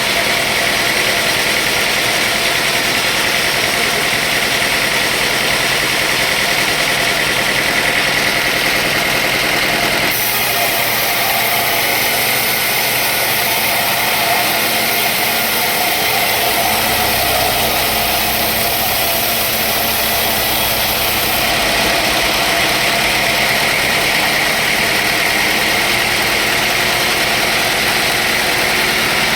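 Sawmill machinery running steadily and loudly. Its sound turns brighter and higher from about ten seconds in until about twenty-one seconds in, then settles back.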